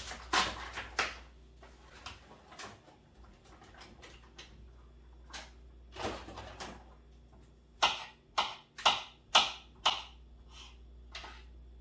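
A kitchen utensil scraping and tapping against cookware as food is scooped onto a casserole. The strokes are short and scattered, then come in a quicker run of about six louder scrapes near the end.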